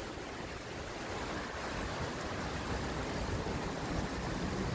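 Steady rush of rain and wind in a thunderstorm, growing slightly louder.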